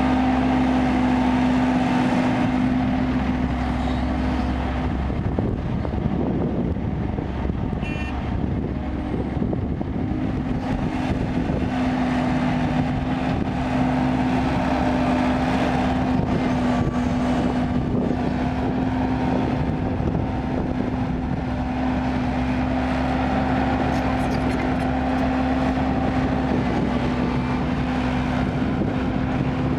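Kobelco crawler excavator's diesel engine running steadily under working load. About five seconds in, its steady drone breaks up for a few seconds, then settles again.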